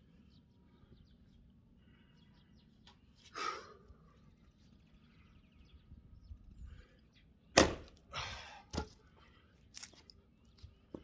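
Axe chopping firewood: one sharp, loud strike into a log about three quarters of the way through, followed by a brief clatter and a few lighter knocks, with a softer swish-like sound earlier on.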